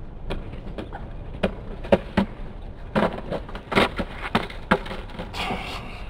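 Skateboard session sounds on concrete: about a dozen sharp clacks and knocks of boards hitting the ground, coming irregularly, over the low rumble of wheels rolling.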